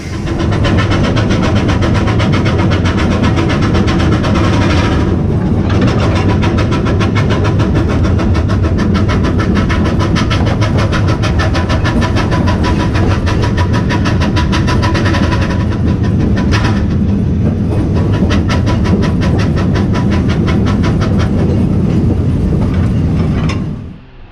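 Narrow-gauge steam locomotive running along the line, heard from on board: a loud, steady rush of rapid, even exhaust beats and rail noise. It cuts off suddenly near the end.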